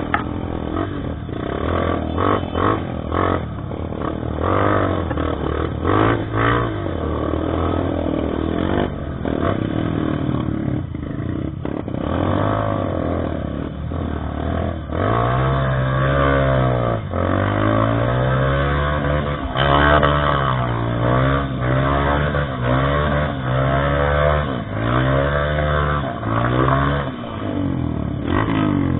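Motorcycle engine revving up and down over and over as it works along a rough trail, with knocks and clatter from the bike in the first half.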